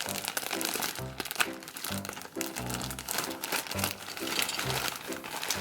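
Background music with a steady, bouncy beat, over the crinkling of plastic bags of building-block pieces being handled.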